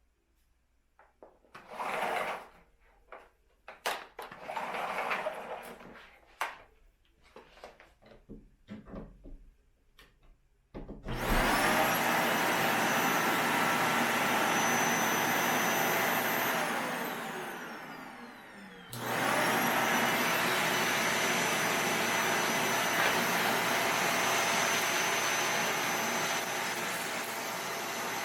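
Scattered knocks and rustles, then a Bissell Zing 2 bagless canister vacuum is switched on about eleven seconds in, its motor spinning up to a steady whine. Around sixteen seconds the motor is switched off and winds down with a falling whine, then it is switched back on a few seconds later and runs steadily.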